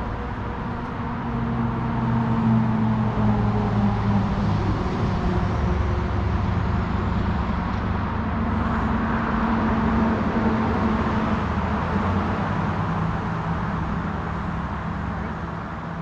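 A motor vehicle's engine running at a steady low pitch up on the roadside. It grows louder about two seconds in, holds, then fades toward the end.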